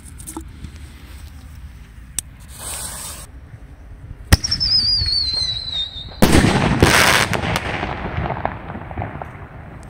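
Brightsky Whistling Buster mortar shell firing: a sharp launch crack from the tube, then a wavering whistle that slowly falls in pitch for almost two seconds, then the loud bang of the shell bursting, which fades out over about three seconds.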